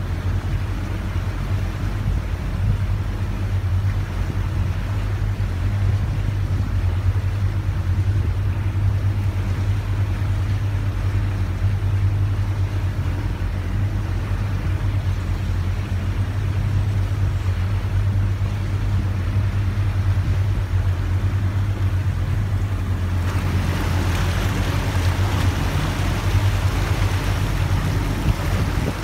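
Boat engine running steadily with a low drone, over the rushing of water along the hull and wake. About three-quarters of the way through, a louder rushing hiss of wind and spray joins in.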